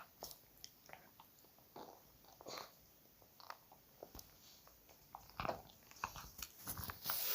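Puppy chewing and biting, a string of irregular short clicks and crunches that get busier and louder near the end.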